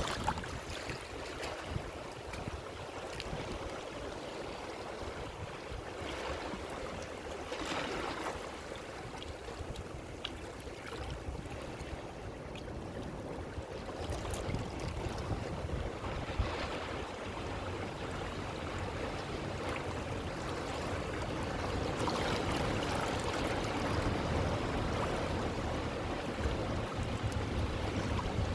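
Ocean waves surging and washing in, several slow swells that build and fall back, growing louder toward the end, with a low rumble underneath.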